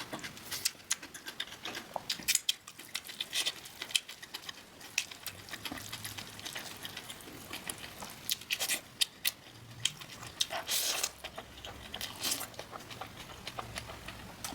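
Close-miked eating sounds: a rapid, irregular run of small clicks and crackles from chewing and crunching food, with a couple of louder crunchy bursts.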